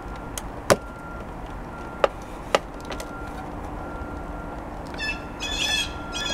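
A few sharp clicks and taps, three in the first three seconds, from hands and a cutting blade working an old outdoor wall light fixture loose from vinyl siding. From about five seconds in, a bird chirps over and over.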